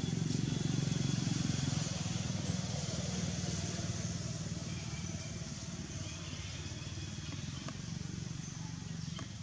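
Low, steady hum of a motor vehicle engine, fading slowly.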